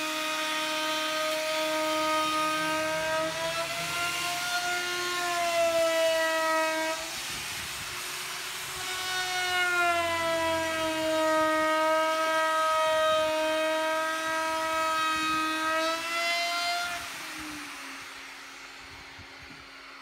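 Electric sander running on a wooden tabletop: a motor whine over a sanding hiss, its pitch dipping and recovering as it is pressed into the wood. It breaks off briefly about seven seconds in, runs again, then drops in pitch and fades as it winds down near the end.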